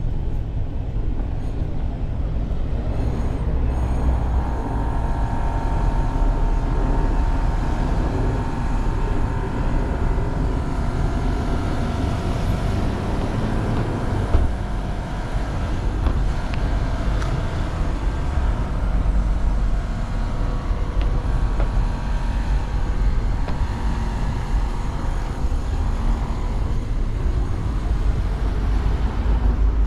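City street traffic at an intersection: cars running and passing, with a steady low rumble. One short sharp knock about halfway through.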